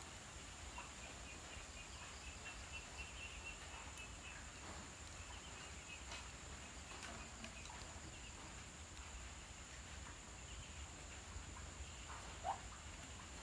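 Faint chirping of night insects, with a quick run of high chirps in the first few seconds over a steady thin high whine. One short rising squeak near the end is the loudest sound.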